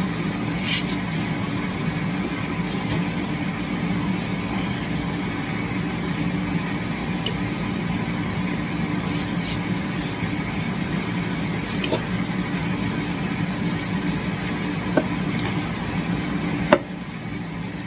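Steady low hum in the kitchen, with a few sharp clicks as food is moved around in the pan. Near the end a louder click comes and the hum drops to a quieter level.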